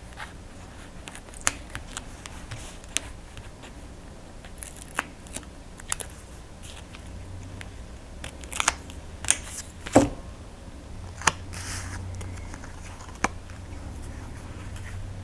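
Small pieces of paper and card being handled and pressed down on a crafting mat: scattered light clicks, taps and paper rustles, with a sharper tap about ten seconds in.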